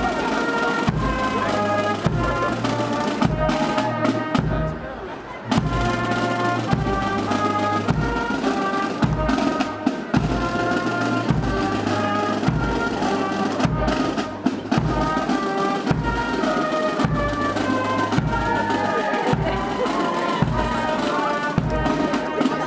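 Brass and drum band playing a tune over a steady bass-drum beat, briefly quieter about five seconds in.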